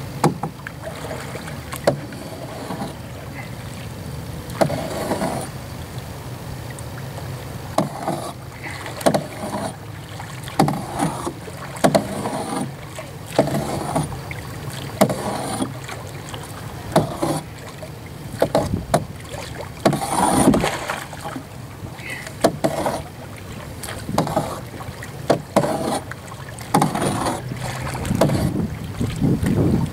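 Paddle strokes from a double-bladed paddle beside a canoe: a splash and drip every second or two, with occasional sharp knocks.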